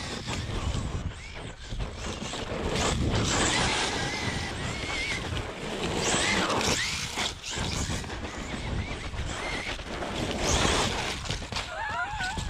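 Traxxas Sledge RC monster truck's electric drivetrain running hard, over a steady rushing noise, with a high squeal that wavers in pitch about three to five seconds in and again near the end. The squeak comes from worn stock wheel bearings and a worn, wobbling center diff bearing.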